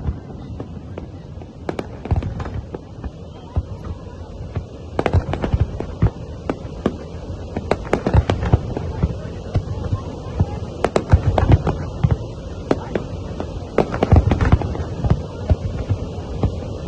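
A large aerial fireworks display: many shells bursting in quick succession with bangs and crackling. The bursts come thicker and louder from about five seconds in.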